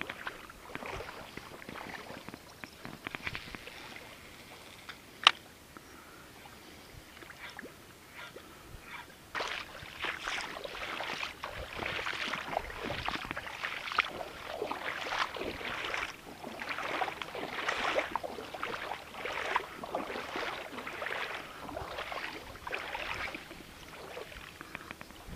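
A popper lure worked in jerks across the water surface, giving a run of short splashing, gurgling chugs from about nine seconds on; it squelches and grunts, as a popper should. A single sharp click comes about five seconds in.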